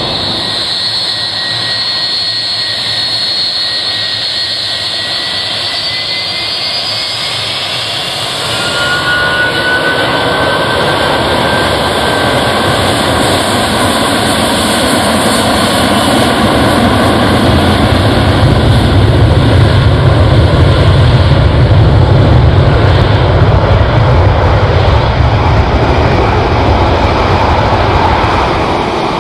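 Boeing 757-300's jet engines spooling up for takeoff: a high whine rises in pitch over the first several seconds, then the sound steps up about eight seconds in and a deep rumble builds and grows loud as the jet accelerates down the runway.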